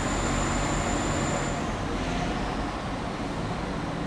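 West Midlands Trains Class 172 Turbostar diesel multiple unit departing, its underfloor diesel engines running steadily. A thin high whine fades out about a second and a half in.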